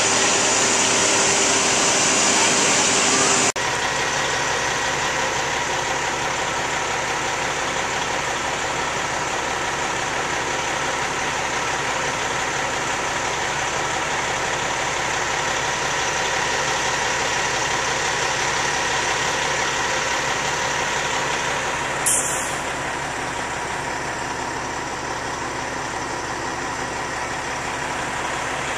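Engine of the tree crew's crane running steadily. One brief sharp high-pitched noise comes about three-quarters of the way through.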